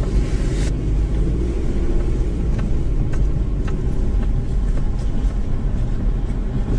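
Car driving slowly on a paved road: a steady low rumble of engine and tyres, with a few faint ticks in the middle. A high hiss cuts off under a second in.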